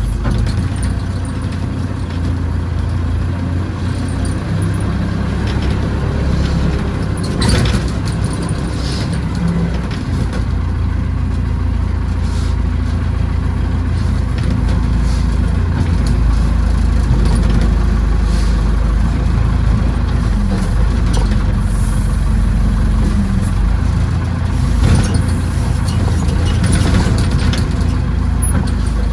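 Backhoe engine running steadily under work, with a few brief knocks and clanks, one about seven seconds in and another near twenty-five seconds.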